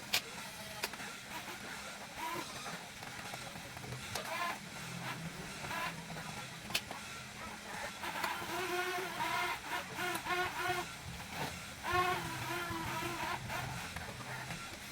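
Electric motors of a Huina 1550 RC excavator whining in short bursts, each about a third of a second long with shifting pitch, mostly in the second half, along with a few sharp clicks.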